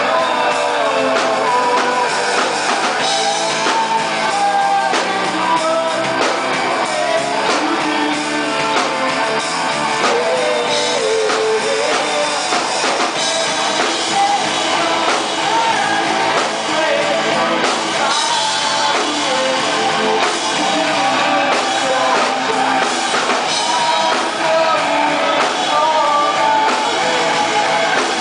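Live rock band playing a song: electric guitar, bass guitar and drum kit, with a male lead vocal sung over them.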